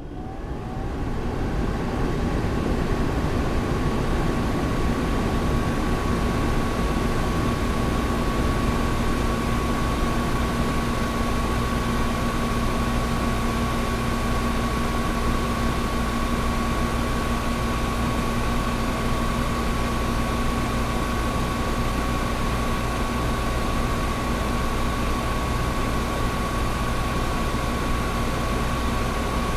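Old window air conditioner running steadily: a constant rush of blowing air over a low hum, with a thin high whine held on one pitch. It fades up from silence over the first second or so.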